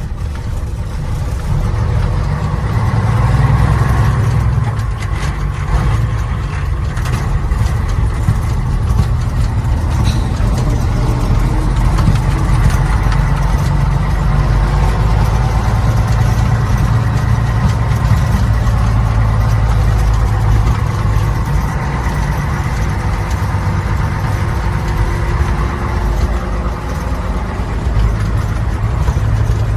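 1951 Mack LFT truck's engine running as the truck is driven: a steady, deep engine drone whose pitch drifts a little up and down.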